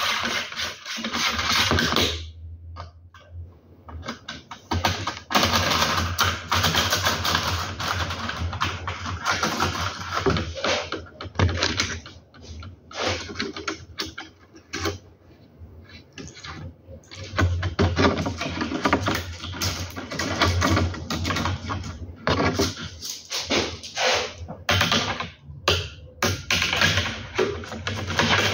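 Rapid clicking and rattling of small plastic parts against an aluminium blind headrail as it is put together, coming in bursts of a few seconds with quieter gaps between.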